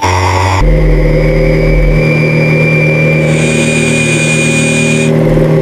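Truck engine running steadily at an even speed, starting about half a second in, with a thin high whine over it.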